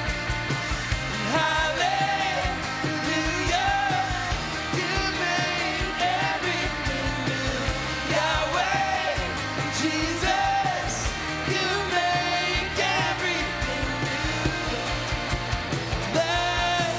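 Live band music with a sung lead vocal over acoustic guitar and electric bass, with a steady beat.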